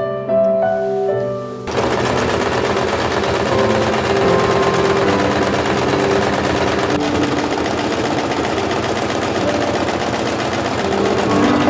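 Singer electric sewing machine starting up about a second and a half in and then running steadily at speed, a fast even whirr of rapid needle strokes as it stitches white curtain fabric. Soft piano music plays underneath.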